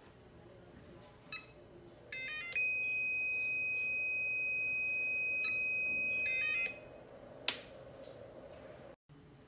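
Electronic buzzer of a fingerprint control board responding to a finger on the round fingerprint sensor: a quick run of stepped beeps, then one long steady high beep lasting about four seconds, closed by another quick run of beeps. A few sharp clicks sound before, during and after it.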